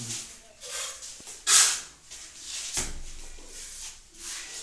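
Mason's float and trowel scraping and slapping wet cement plaster on a brick wall: a few short scraping strokes, the loudest about a second and a half in, and a sharp knock near three seconds.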